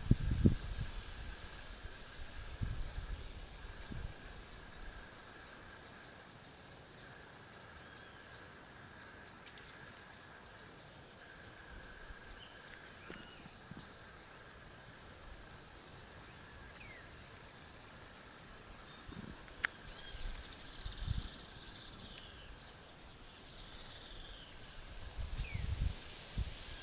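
Steady high-pitched insect chorus with a regular pulsing trill running through it. A few short chirps of birds come in around 20 seconds in, and a few soft low bumps come near the start and end.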